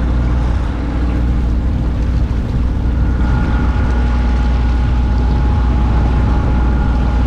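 Sailboat's inboard diesel engine running steadily while motor-sailing in a calm, a deep constant hum over wash and wind noise.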